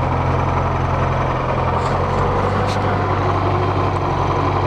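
ZIL Bychok truck's four-cylinder diesel engine running steadily after new injector nozzles were fitted. It will not hold a proper idle and keeps stalling, for a cause the owner can't find.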